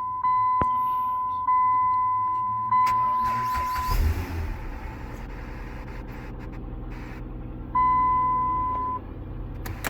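2010 Dodge Journey's 3.5 V6 cranking and starting about four seconds in, then idling steadily; it now starts normally after its corroded starter ground wire was cleaned. Before the start, a dashboard warning chime sounds at an even pace, and it sounds once more near the end.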